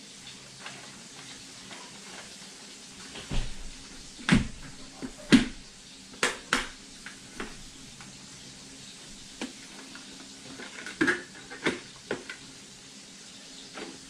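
Hard plastic clicks and knocks from an HJC i90 modular motorcycle helmet being handled and turned over in the hands: about ten irregular taps, the loudest a few seconds in and a cluster near the end.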